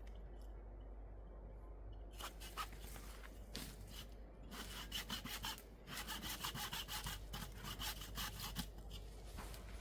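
Hand saw cutting through wood with quick back-and-forth strokes, starting about two seconds in and pausing briefly twice before stopping near the end.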